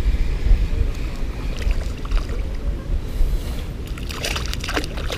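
Wind rumbling on the microphone of a kayak, with water lapping at the hull. Several short sharp sounds come in the second half, while a spinning reel is being cranked in on a hooked fish.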